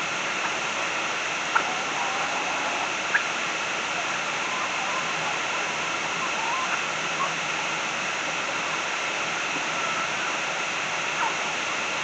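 Steady rushing noise like running water, with a few faint short peeps and two brief sharp ticks in the first few seconds.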